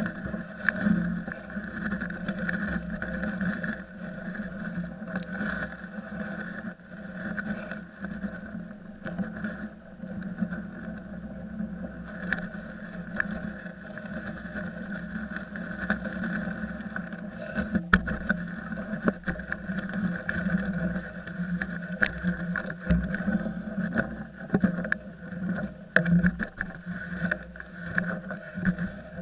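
Cedar log being winched out by cable on a mash-pulley system, heard from the log itself: a steady mechanical drone with rough scraping and scattered knocks as it drags over the ground and slash.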